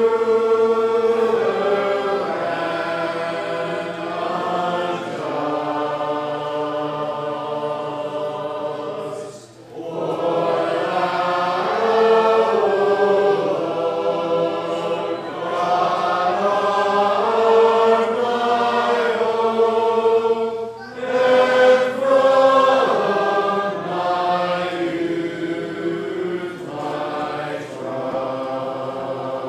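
A congregation singing a metrical psalm unaccompanied, in slow held notes. There are short breaks between phrases about 9.5 and 21 seconds in.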